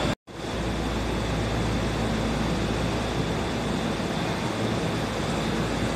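Steady hum and hiss of a Tokyo Metro 2000-series subway train standing at an underground platform, with a faint high steady tone over it; the sound drops out for a moment right at the start.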